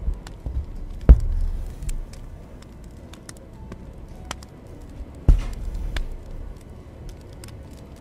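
Handling sounds of hand embroidery in a wooden hoop: two dull knocks with a short low rumble after each, about a second in and again around five seconds, over faint scattered ticks as needle and thread work through the fabric.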